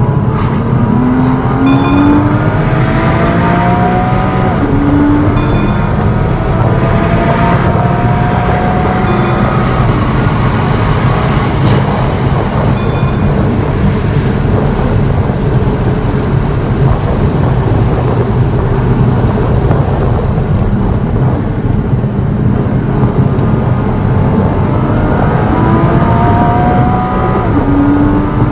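Sports car engine heard from inside the cabin at track pace, climbing in pitch under hard acceleration through the gears near the start and again near the end. Between these, heavy braking and cornering bring a dense wash of engine, tyre and wind noise.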